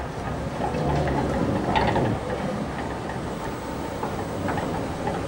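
Duewag type L tram motor car rolling slowly along the track, a low rumble louder about a second in, with a few clicks from the wheels over rail joints and points.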